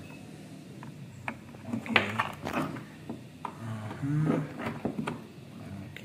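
Cables being handled and a USB plug being fitted into a KVM switch's port: rustling, with several sharp plastic clicks and knocks.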